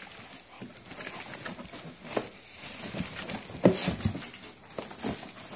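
Cardboard box knocking and rustling irregularly as a child moves around inside it, with one sharp bump a little before four seconds in.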